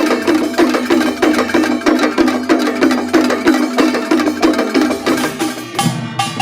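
Korean pungmul percussion troupe playing: rapid, evenly repeating strikes of gongs and drums in a driving rhythm, the pattern changing about six seconds in.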